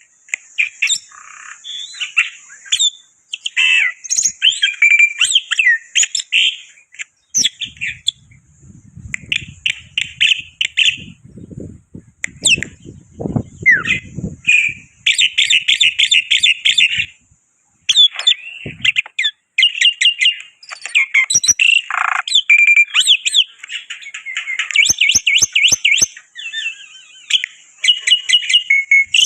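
Black-winged starling singing loudly: a long, varied stream of harsh chattering, rapid trills and clear whistles, broken by short pauses.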